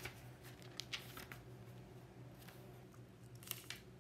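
Faint rustles and small scattered clicks of book pages being handled, over a low steady hum.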